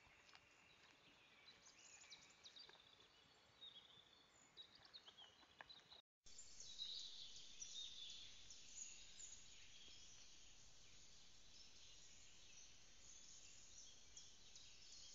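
Faint forest ambience with small birds chirping and singing, and a few light clicks in the first part. About six seconds in the sound cuts out briefly, then resumes with a slightly louder, denser chorus of birdsong over the hiss of a trail camera's microphone.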